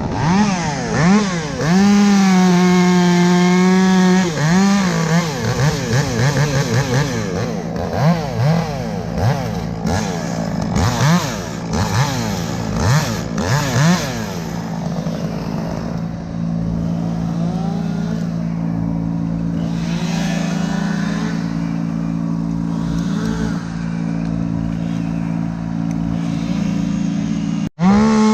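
Chainsaw engine held at high revs for about two seconds, then blipped up and down in quick, repeated revs. After that it runs more steadily at a lower speed.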